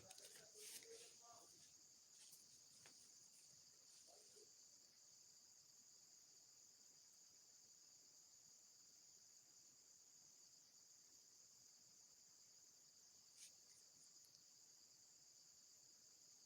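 Faint, steady chorus of crickets chirping, a continuous high trill. A few brief clicks and a short lower sound come in the first couple of seconds, and a single click about 13 seconds in.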